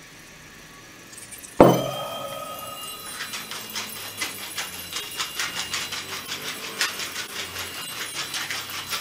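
A sharp knock with a ringing tone about a second and a half in, then a steady run of fast clicks as salt is shaken and a wooden pepper mill is ground over the dish.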